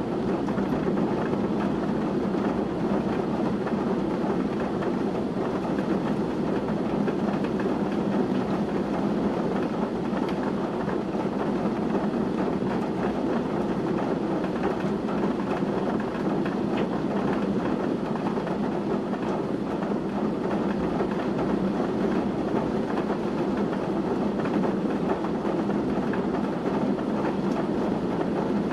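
Heavy, wind-driven rain pouring steadily in a downpour, a dense even hiss and rumble without let-up.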